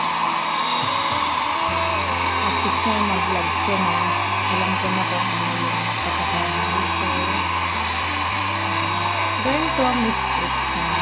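Handheld electric hair dryer running steadily, blowing on wet hair, with a song playing underneath.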